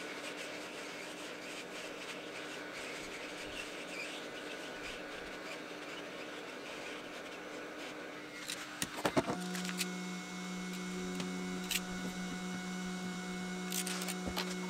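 Hot-air plastic welding gun blowing steadily with a hiss. About halfway through come a few clicks and knocks, then a steady electric motor hum sets in and holds.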